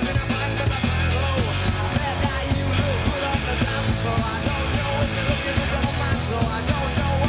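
Live rock band playing fast and loud: distorted electric guitars, bass guitar and a steady driving drum beat, with a male lead vocal into the microphone.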